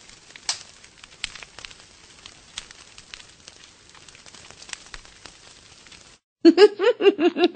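Faint crackle and scattered clicks of an old recording's soundtrack surface noise. About six seconds in it cuts off, and a much louder run of quick, bouncing pitched sounds starts.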